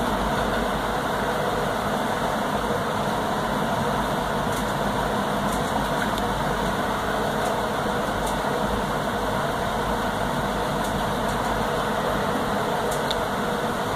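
A steady mechanical hum with a noisy hiss over it. A few faint light ticks come through, as cardboard jigsaw pieces are handled and slotted together.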